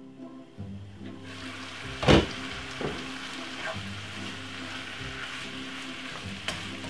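Shredded cabbage and carrot sizzling in a frying pan and being stirred with a wooden spoon; the sizzle opens up about a second in as the glass lid comes off. A sharp knock of utensil or lid on the pan about two seconds in, with lighter taps later.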